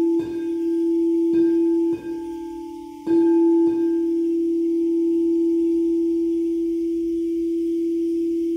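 Crystal singing bowl ringing one steady low tone with fainter higher overtones. It is struck several times in the first four seconds, then left to sustain, fading slowly.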